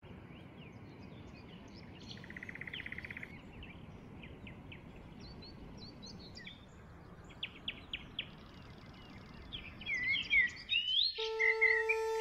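Small birds chirping and twittering over a steady outdoor background noise, with a short buzzy trill about two seconds in and louder calls near the end. A held musical note comes in about a second before the end.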